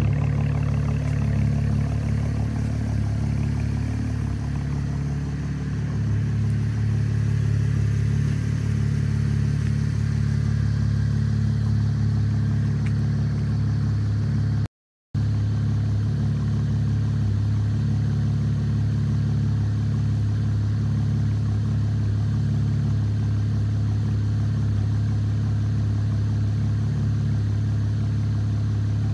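The 3.6-litre V6 of a 2012 Chevrolet Camaro with a muffler delete, idling steadily after a cold start. The unmuffled exhaust gives a loud, raspy drone. The sound cuts out for a moment about halfway through.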